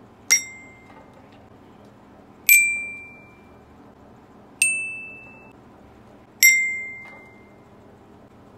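Glockenspiel bars of a student bell kit struck with mallets: four single notes about two seconds apart, each ringing and fading. The first three step up in pitch and the last drops back to the first. A beginner is picking out a melody one note at a time.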